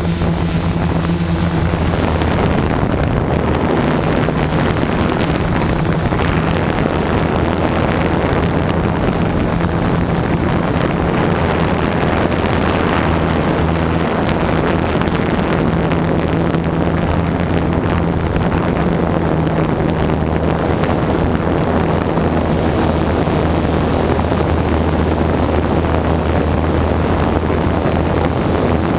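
Multirotor drone's motors and propellers running with a steady, loud hum, picked up by the onboard camera's microphone, with wind rushing on the microphone.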